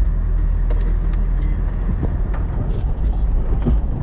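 Jeep running at low, steady revs on a dirt trail, with scattered short knocks and rattles from the body and suspension.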